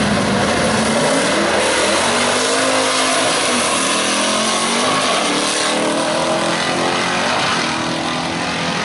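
Studebaker V8 drag car running at full throttle down the strip through its manual gearbox; the engine note climbs, drops back at each gear change and climbs again.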